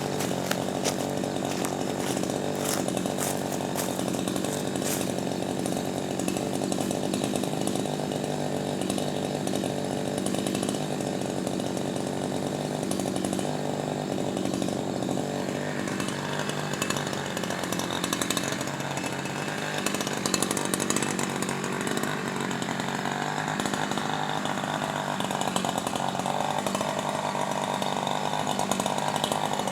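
Chainsaw engine running continuously in the tree, its tone changing about halfway through.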